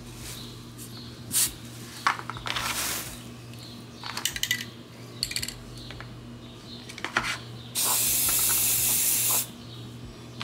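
Aerosol spray paint can spraying: several short hisses, then one steady spray lasting about a second and a half near the end.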